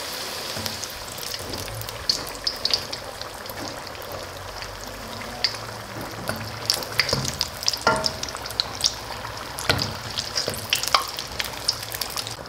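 Beef samosas deep-frying in hot oil: a steady sizzle with frequent crackles and pops from about two seconds in, and a few sharper clicks near eight and ten seconds.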